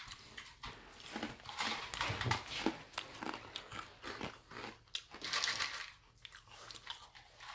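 A person crunching and chewing a mouthful of Sour Patch Kids cereal, with irregular crisp crunches.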